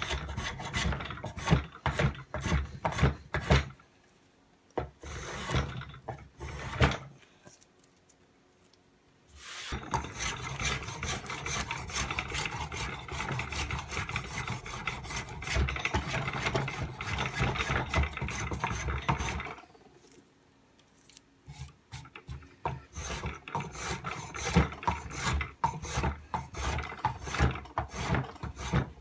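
A bladed hand tool shaving a hardwood stick clamped in a vise, in fast repeated scraping strokes. The strokes stop for a few seconds about a quarter of the way in and again about two-thirds of the way in, then resume.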